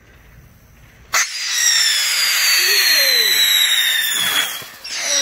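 A small ground firework catches with a sudden pop about a second in, then shrieks, really loud: a steady hiss with a high whistle sliding down in pitch. It breaks off briefly near the end, and a second falling whistle starts.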